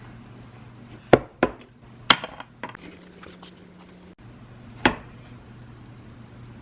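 Sharp knocks and clinks of household objects being handled, about five in all, the loudest clustered in the first half, over a steady low hum.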